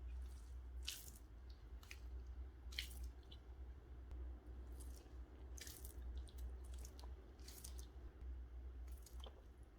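Slime being squished and kneaded by hand: irregular sticky squelches and small pops, roughly one a second, over a steady low hum.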